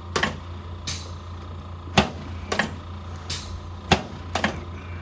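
A series of sharp clicks and knocks during a chiropractic treatment of a patient lying face down, about seven in five seconds and irregularly spaced, over a steady low hum.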